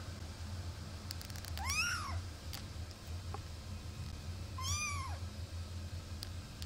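A 23-day-old Singapura kitten mewing twice, short high-pitched mews that rise and then fall, about three seconds apart, over a steady low hum.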